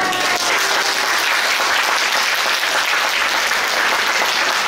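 An audience applauding steadily, many hands clapping in a dense, even patter.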